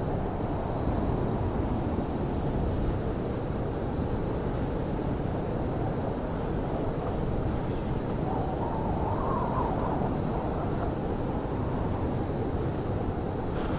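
Railyard ambience in winter: a steady low rumbling noise with wind-like hiss and a faint constant high whine. Twice, a brief high pulsed chirp cuts through.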